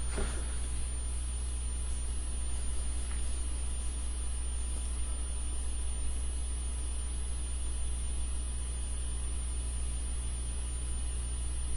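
Steady low electrical hum with an even hiss and a thin, steady high whine: the noise floor of a headset-microphone recording, with no speech.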